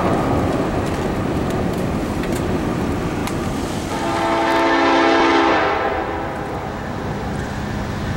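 Diesel freight train rumbling along the rails, with a locomotive air horn sounding one chord about four seconds in, held for about two seconds.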